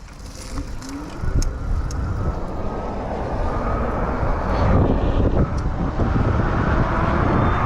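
Wind rushing over the microphone with road noise while riding an e-bike, building up over the first few seconds and then holding steady.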